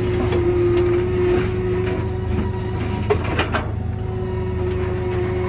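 Cat compact track loader's diesel engine running steadily, with a steady whine held over the drone. A short run of sharp knocks comes about three seconds in.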